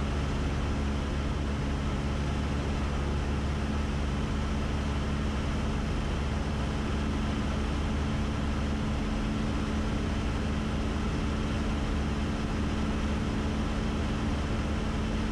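Engine and propeller of a 1966 Cessna 172 with a 180-horsepower engine, droning steadily in flight and heard from inside the cabin: a constant low hum that does not change.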